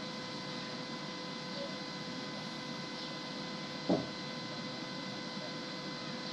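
Steady background hum and hiss with a thin constant whine, and one short soft thump about four seconds in.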